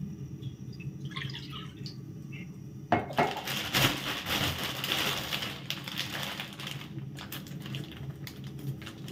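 Water poured from a glass mug into a frying pan, faintly, followed about three seconds in by a thin plastic bag rustling and crinkling with small clicks as hands unwrap a block of palm sugar.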